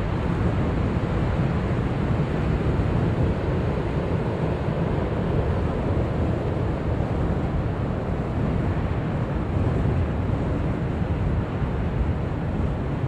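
Ocean surf breaking, with wind buffeting the microphone; a steady, unchanging wash of noise.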